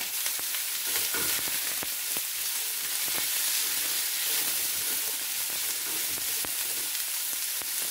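Julienned carrots and green beans sizzling steadily in hot oil in a deep nonstick frying pan as they are stirred, with scattered small crackles and ticks.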